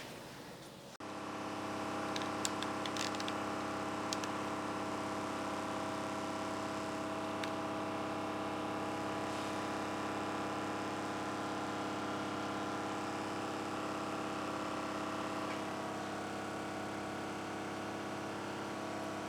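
An electric-motor machine in the shop starts abruptly about a second in and runs with a steady hum, with a few light clicks early on. It is the kind of steady run heard while an air system is charged or a plasma table's water bed is pumped full.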